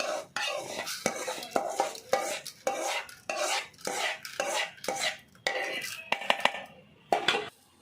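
Spoon scraping and knocking against a pan in quick repeated strokes, about two to three a second, as roasted moong dal is scooped out into another vessel; the strokes stop near the end.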